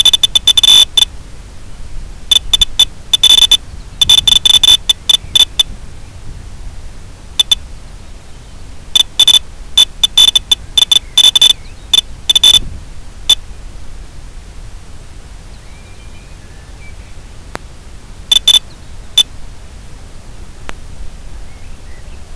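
Steady static hiss from an analog FPV video link's audio channel, broken by clusters of rapid, high-pitched electronic beeps. The beeps come on and off through the first half and twice more briefly later on.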